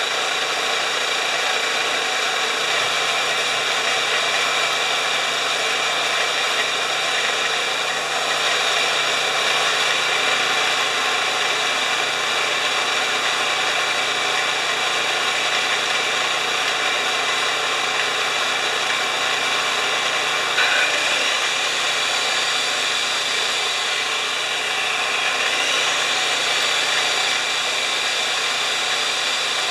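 Homelite 3000-watt portable generator engine running steadily with an even mechanical hum, its spark plug reseated after a bad connection. A brief bump comes about two-thirds of the way through.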